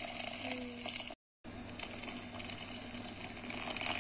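Hot water pouring from a jug into a steel pot of spinach soup, splashing steadily into the liquid. The sound cuts out completely for a moment just over a second in.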